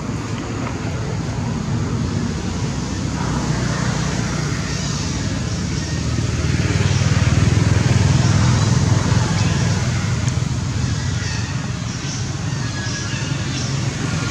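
Steady outdoor background noise: a low rumble with hiss above it, swelling and easing slowly without any distinct call or knock.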